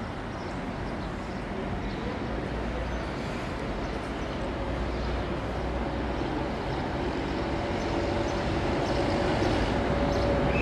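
Rumble of a train running on the rails, slowly growing louder as it approaches, with faint steady tones coming in about halfway.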